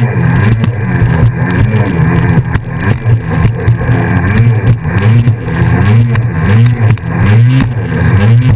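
Kawasaki SX-R 800 stand-up jet ski's two-stroke twin engine running hard, its pitch rising and falling again and again, with water spray and wind noise over it.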